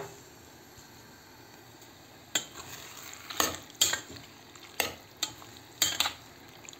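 Metal spoon stirring fried eggplant and canned tomato in a stainless steel pot, over a faint sizzle of frying. After about two seconds the spoon starts clinking and scraping against the pot, about seven sharp knocks spread irregularly.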